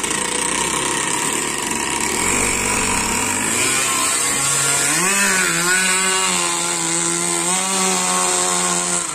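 Small two-stroke gasoline engine of an RC racing boat running at full throttle as the boat speeds away across the water. Its pitch climbs from about three and a half seconds in, jumps up around five seconds and then holds high and steady, with slight wavers.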